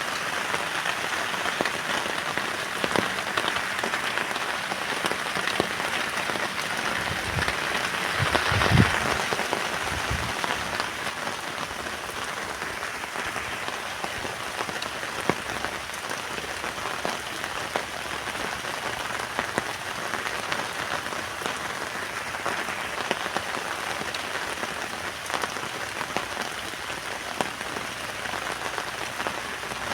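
Heavy rain falling on a tent, a steady hiss dotted with the patter of drops. About eight seconds in a gust of wind swells louder with a low rumble, then dies back.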